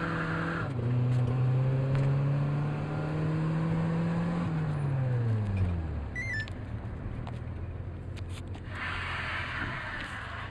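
Turbo-converted VW Golf Mk2's four-cylinder engine heard from inside the cabin, holding steady revs, then dropping back to a low idle over about a second, around halfway through. A hiss comes in near the end.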